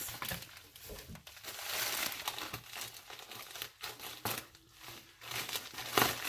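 Plastic packing material crinkling and rustling as it is handled and pulled out of a shipping box, in irregular bursts with a louder crackle near the end.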